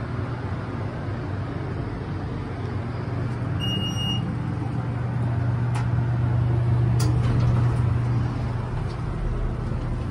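U.S. Elevator hydraulic elevator car in travel: a steady low hum. A short electronic beep sounds about three and a half seconds in, followed by a couple of sharp clicks as the car arrives.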